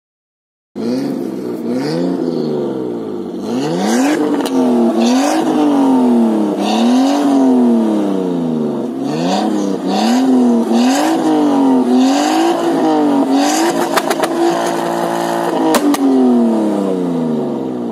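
Nissan Skyline R34's straight-six engine, fitted with a Fujitsubo aftermarket exhaust, being revved while the car is parked. It rises and falls in about a dozen quick blips, then holds a steady rev for over a second near the end before dropping back toward idle.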